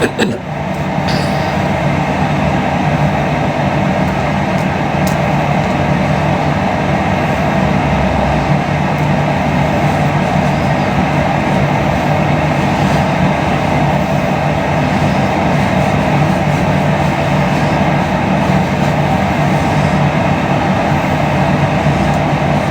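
A steady, unbroken droning rumble with no breaks and no rise and fall.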